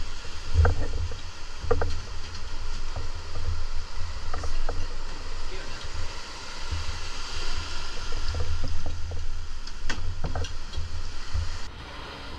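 Noise aboard a small motorboat on the water: a low rumble that rises and falls, with water washing around the hull and a few faint knocks.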